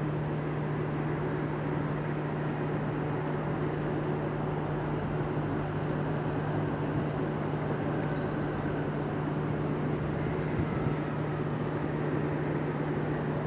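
Electric train at the station giving a steady hum with one constant low tone over a rumbling noise.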